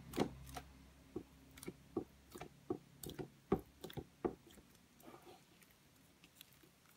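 Fingertips poking into thick, sticky cornstarch slime, making a run of small wet clicks and pops about two or three a second that thin out after about four seconds.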